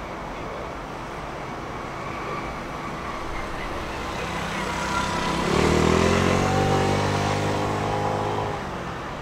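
A motor vehicle's engine passing close by: it comes up about four seconds in, rises in pitch as it speeds up, holds steady for a few seconds, then drops away near the end.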